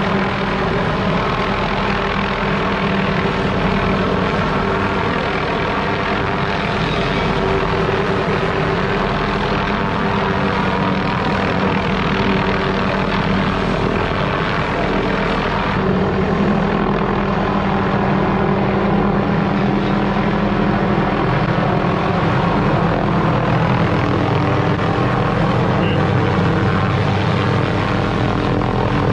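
Helicopter flying close with a tree-trimming rotary saw hanging beneath it on a cable, its rotor and engines running loud and steady.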